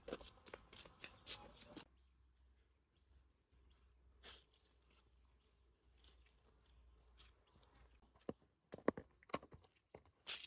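Footsteps of sandals on a dirt path, quiet, a step every half second or so for about two seconds, then near silence with a few faint taps. A handful of sharp knocks and taps come close together near the end.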